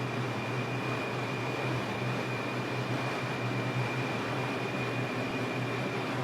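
Steady hum and hiss inside an R142 subway car, with a thin high electrical whine held at one pitch that fades out near the end.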